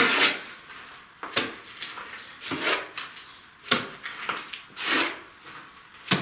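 Cement plaster mortar being scooped by a gloved hand from a bucket and thrown onto a masonry wall: a run of short, wet slaps, roughly one a second, with softer scraping between them.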